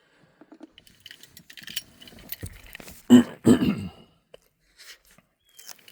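Handling noises: scattered light clicks and rustling, with two louder knocks about three seconds in, as a handheld OBD2 scan tool and its cable are handled.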